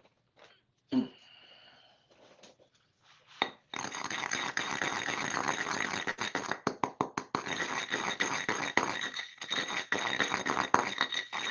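Stone molcajete being scraped and knocked with its pestle to get the last bits of ground ingredients out into a copper pot. A single thump comes about a second in. From about four seconds in there is a dense run of gritty scraping with rapid clicks.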